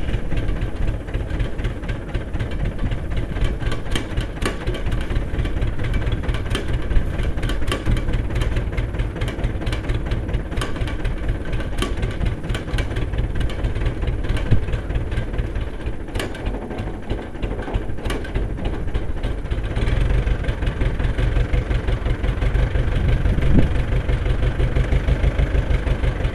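1974 International 574 tractor's four-cylinder diesel engine running just after a cold start, idling with a rhythmic firing pulse and scattered sharp clicks. It gets a little louder about twenty seconds in.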